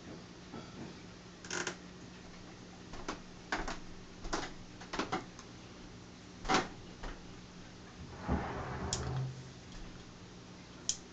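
Scattered sharp clicks and knocks from a hand working the switches on a plastic control box and handling the LED light fixture, about nine in all, with a brief rustling scrape about eight seconds in. A steady low hum runs underneath.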